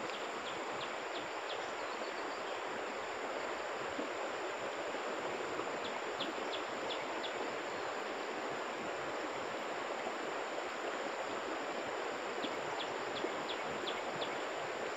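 Steady rushing of a shallow stream flowing over a stony bed, with a thin steady high-pitched whine and a few short runs of faint ticks heard over it.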